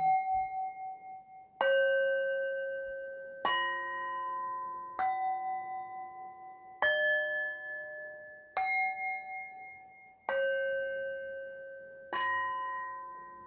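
Slow meditation music of struck chimes: a ringing, bell-like note or small chord sounds about every 1.7 seconds, eight strikes in all, each one left to ring out and fade.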